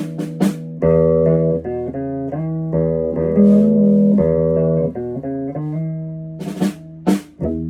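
Instrumental guitar music: held plucked notes changing every half second or so over a steady low note, with a few short scratchy strokes across the strings.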